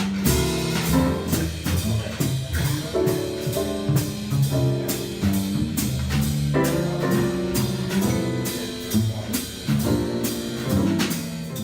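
Live jazz piano trio playing: piano chords and lines over upright bass, with the drum kit keeping time on cymbals.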